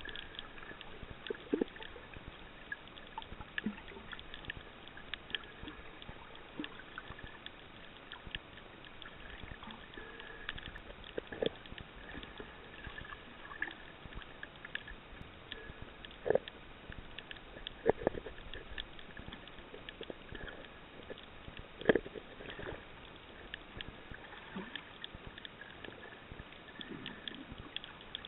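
Underwater sound in a shallow reef lagoon: a continuous fine crackle of small clicks over a faint steady high tone. A handful of louder knocks come through it, the strongest about 16, 18 and 22 seconds in.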